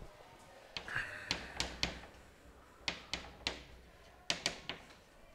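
Chalk tapping against a chalkboard as letters and symbols are written: a series of sharp taps in quick groups of two or three, starting about a second in.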